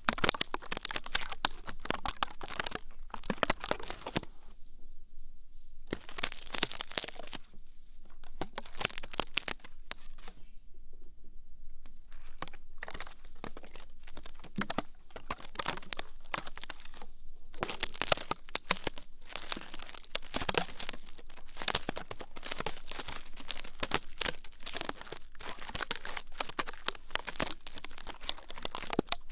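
Close-miked ear-cleaning ASMR sounds: dense crackling and scratching that come in runs with short pauses between them.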